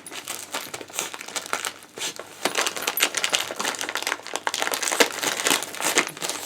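Wrapping paper crinkling and rustling in a fast, irregular string of crackles as a dog tears at a Christmas present.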